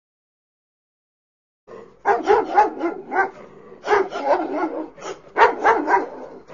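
Rapid, high yapping barks in three flurries, starting about two seconds in.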